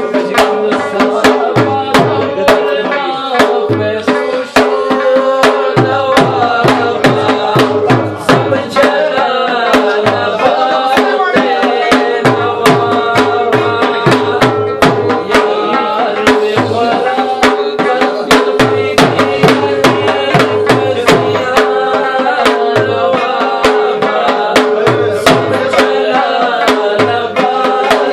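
Live Pashto music: a tabla played with quick hand strokes, its bass drum giving low strokes that bend in pitch, under a plucked rabab melody and a steady drone.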